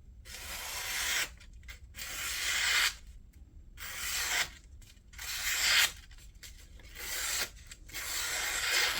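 Fintiso Nightshade knife's 14C28N blade slicing through a sheet of material in a sharpness test: six cutting strokes, each about a second long with short pauses between them. The edge cuts readily; it is very sharp.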